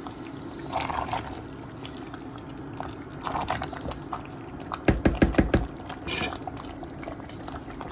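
Pot of Banga (palm-fruit) soup cooking, with liquid bubbling and sloshing. A quick run of about six loud knocks comes a little after halfway.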